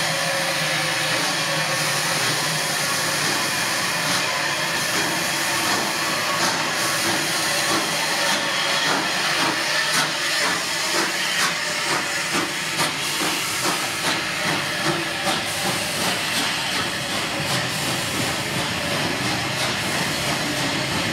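Bulleid West Country class steam locomotive 34092 drawing its train slowly past, with a steady hiss of steam from its open cylinder drain cocks. Through the middle stretch a run of exhaust beats comes in at about two a second.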